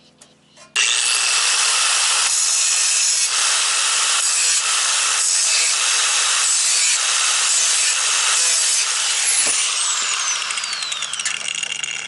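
Electric angle grinder with a cut-off wheel switching on about a second in and cutting into a spot weld on a stamped-steel car core support. It runs loud and steady, then is released near the end, its whine falling as the disc spins down.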